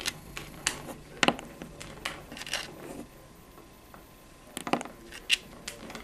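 African grey parrot's beak making scattered sharp clicks and taps, a few at a time with a pause near the middle, as it pecks and works at a wooden table top.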